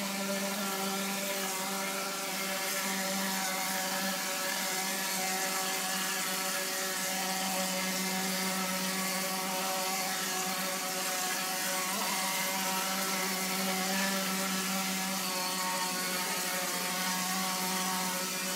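Plastering machine pumping and spraying plaster through a hose onto a wall: a steady motor hum at one constant pitch under a dense hiss of air and plaster from the spray nozzle.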